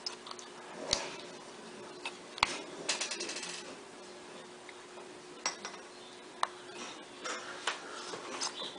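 Scattered small clicks and taps of hand tools and phone parts being handled on a work surface during a phone screen repair, with a short rattle about three seconds in and a cluster of light taps near the end.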